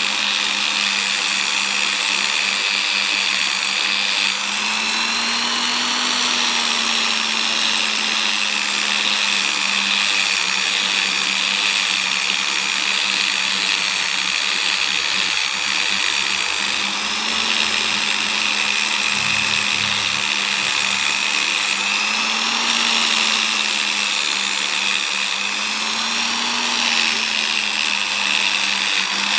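Electric motor spinning a cloth buffing wheel, running steadily while a carved sonokeling rosewood piece is polished against it. Its hum rises a little in pitch and drops back several times.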